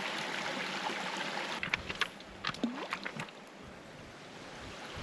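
Small waves lapping and trickling against a rocky lakeshore. Midway through there is a quick run of sharp clicks and knocks from stones shifting underfoot.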